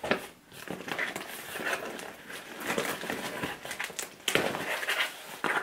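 Cardboard shipping box being opened by hand: irregular scraping and rustling with short crackles and clicks.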